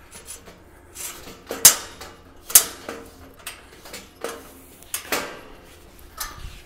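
Hex key turning a bolt in a stainless-steel cart frame, tightening the shelf to the leg: a few irregular metal clinks and ticks, the sharpest two about one and a half and two and a half seconds in.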